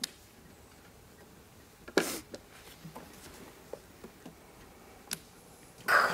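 Mahjong tiles clacking on the table as players draw and discard: a loud clack about two seconds in and several lighter clicks after it. A man's groan comes at the very end.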